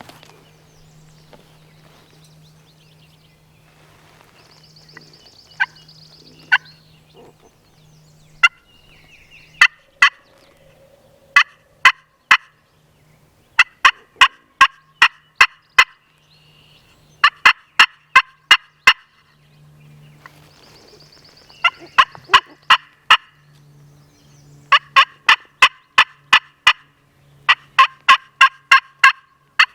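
Hand-worked turkey call imitating hen turkey yelps: a few single sharp notes, then runs of short, loud notes at about four a second, each run lasting a couple of seconds, sent out to draw an answering gobble from a tom.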